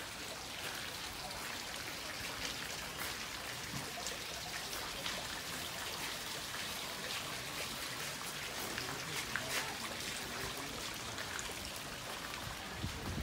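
Rain falling: a steady hiss with many small, irregular drop ticks.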